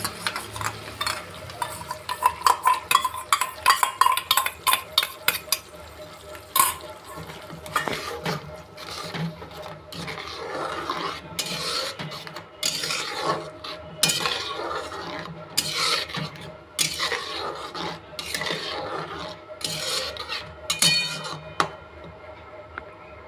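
Spatula stirring and scraping a curd-and-spice paste in a cooking pan while it is stir-fried (kasha): quick clinks against the pan at first, then slower scraping strokes that stop near the end.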